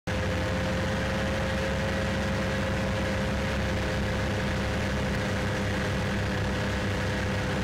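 Vehicle engine running at a steady, unchanging speed with a constant drone.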